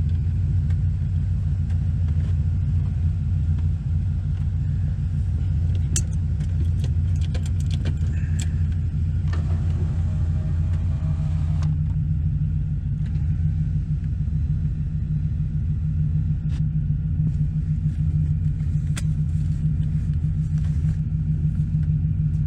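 Camaro Z28's LT1 V8, fitted with TorqHead cylinder heads, running steadily with a deep, even rumble and no revving. A few light clicks and rattles come about six to eight seconds in.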